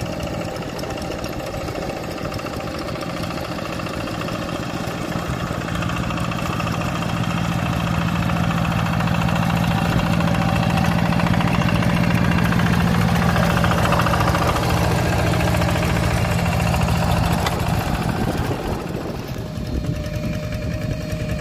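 Two-wheel hand tractor's single-cylinder diesel engine chugging steadily under load while ploughing a flooded rice paddy. It grows louder toward the middle as it passes close by, then fades near the end.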